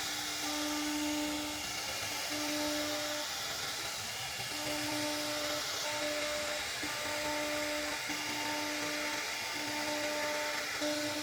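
CNC router spindle cutting wood: a steady high whine over a rushing noise, the whine breaking off and coming back every second or so as the cut changes.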